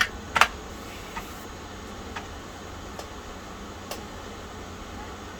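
Two keystrokes on the Tandy 1000 EX's keyboard at the start, the second the loudest, then a few faint ticks about a second apart over a steady low hum.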